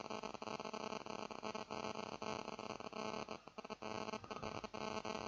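Steady electrical hum and static hiss, crossed by faint irregular clicks.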